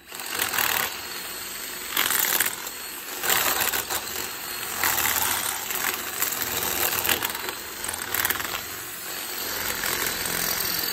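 Cordless drill enlarging a hole in a steel pipe fitting clamped in a vise with a larger twist bit, the bit grinding and chattering through the metal. The noise swells and eases in uneven spurts as the drill is pushed and let off.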